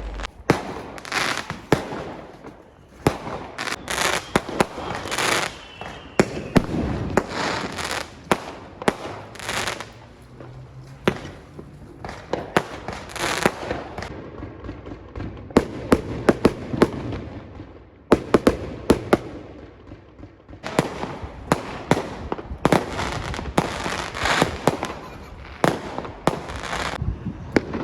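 Fireworks going off all around in a continuous barrage: many sharp bangs and crackling bursts at varying distances, with short lulls in between.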